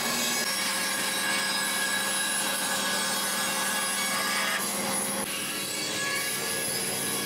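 A large band saw ripping a wooden plank lengthwise, a steady sound of the blade cutting through the wood over the machine's running.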